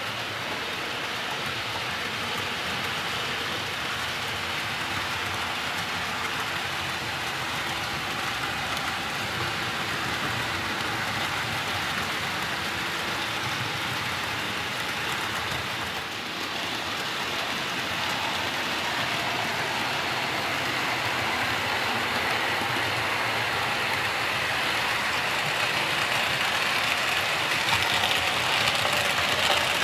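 OO gauge model trains running on the layout: a steady rushing rumble of small wheels on the rails and the locomotive motors, growing gradually louder in the second half as a train comes nearer.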